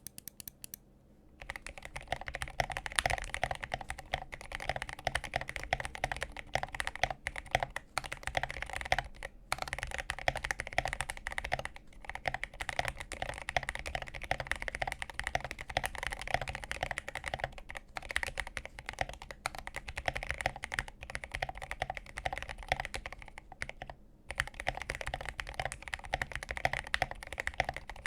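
Continuous typing on a Gamakay K66 mechanical keyboard with lubed Gateron Black linear switches, lubed stabilizers and a foam-filled case: a dense, steady patter of keystrokes that starts about a second in, with a few brief pauses.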